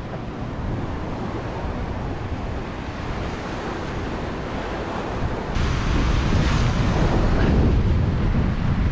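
Ocean surf washing onto a sandy beach, with wind rumbling on the microphone. The sound gets suddenly louder about halfway through.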